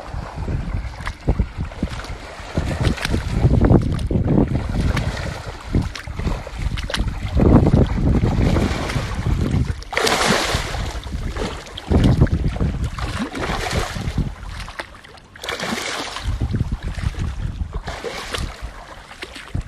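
Wind buffeting the microphone in uneven gusts, a low rumbling noise. Twice a louder, hissing rush of noise cuts in and stops sharply.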